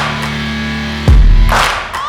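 Background rock music: a held low guitar or bass chord with drum hits, a heavy low drum hit about a second in.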